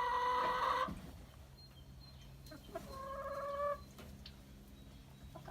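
Two drawn-out calls from farm animals: the first cuts off just under a second in, the second, about three seconds in, wavers in pitch for under a second.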